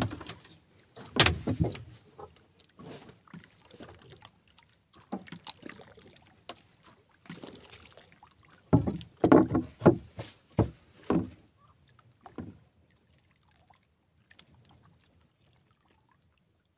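Irregular knocks and thumps on the hull of a small outrigger boat, loudest about a second in and in a cluster from about 9 to 11 seconds in, then fading to near quiet.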